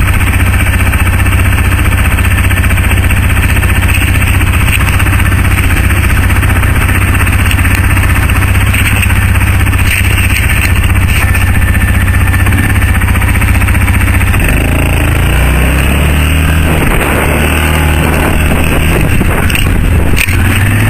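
ATV engine running steadily and loudly close to the microphone while riding over snow. About two-thirds of the way through its note drops and turns uneven as the vehicle slows toward idle.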